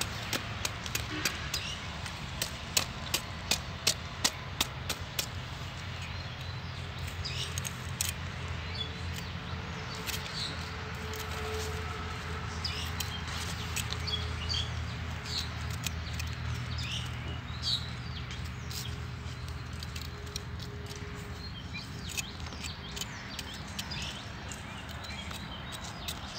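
A large knife cutting through a cauliflower's stalk and leaves. The sharp cuts come about twice a second for the first five seconds, then more sparsely. Birds chirp in the background over a steady low hum.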